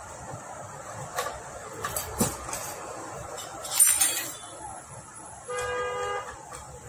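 Hand tools clicking and clinking against a scooter engine, with a louder metallic clatter about four seconds in. Near the end a vehicle horn toots once, for under a second.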